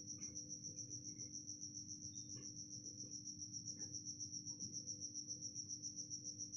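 A cricket chirping steadily: one high, even trill pulsing about six times a second, over a faint low hum.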